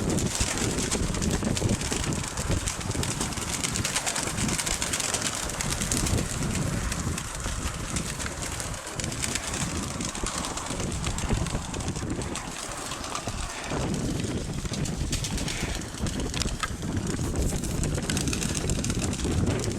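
Strong wind buffeting the microphone in a gusting low rumble, with domestic pigeons cooing.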